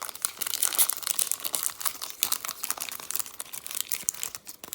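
Crinkling and crackling of foil trading-card packs and cards being handled and shuffled, a dense run of small rapid crackles.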